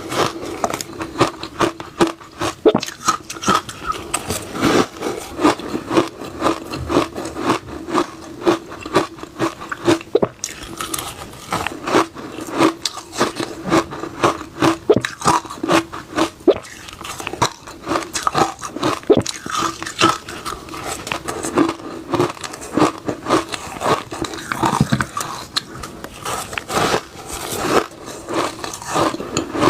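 Shaved refrigerator ice being bitten and chewed close up: a fast, irregular run of crunches, several a second, over a faint steady hum.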